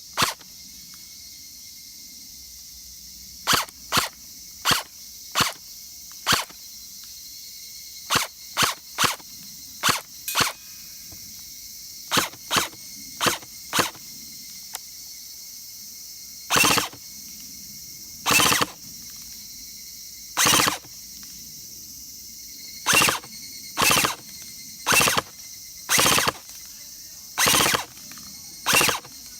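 WE-Tech SCAR-Light airsoft electric gun (AEG) firing: a run of separate single shots, then from about halfway, short bursts of fire a few tenths of a second long.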